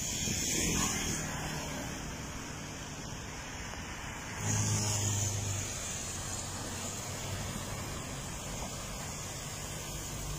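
Road traffic on a wet road: motorbikes and cars going by over a steady hiss. The sound gets abruptly louder about four and a half seconds in.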